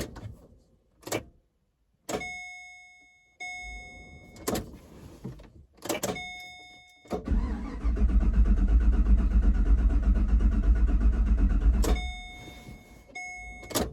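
A 2013 Chevrolet Caprice PPV V8 cranking on its starter for about five seconds without catching, then stopping: a crank-no-start. Before and after the cranking come dashboard warning chimes and a few sharp clicks. The fuel pump is not running.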